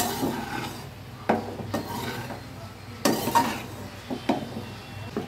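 A metal spoon scraping and clinking against a metal kadai as fried rice is stirred and tossed, in a series of irregular strokes.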